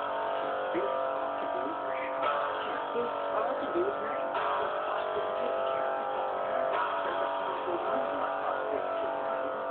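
Guitar music: strummed, sustained chords that change about every two seconds. It starts and stops abruptly.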